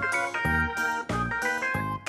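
Background music: plucked notes over a steady, bouncy bass beat.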